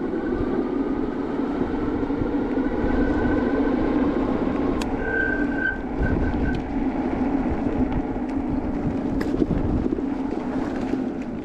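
E-bike on the move: wind rush and a steady low hum of riding. About five seconds in, a thin, high disc-brake squeal sounds for about a second and a half, cutting in and out. The brake still squeals despite freshly applied anti-squeal paste.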